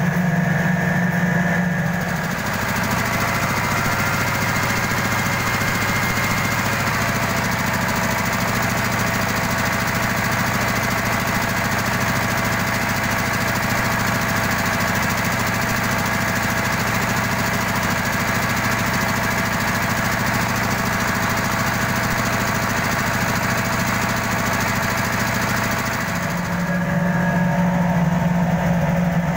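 Engine-driven mobile rice mill (huller) running steadily under load as paddy feeds through it. The loud, even machine hum changes its tone about two seconds in and changes back near the end.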